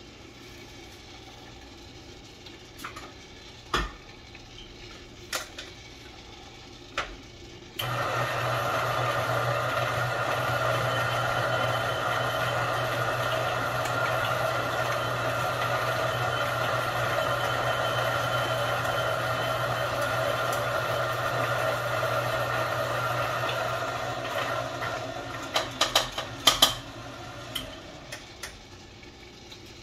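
Niche Zero conical burr grinder motor running steadily for about sixteen seconds, grinding an 18-gram dose of coffee beans, with a low hum under it. A few light clicks come before it starts, and a quick cluster of sharp taps and knocks follows it near the end.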